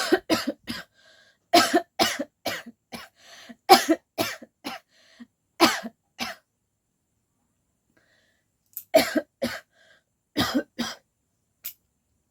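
A woman coughing deliberately in quick fits of three or four coughs each, with a silent pause of about two seconds past the middle. The coughs are forced rather than from illness: she has no cold.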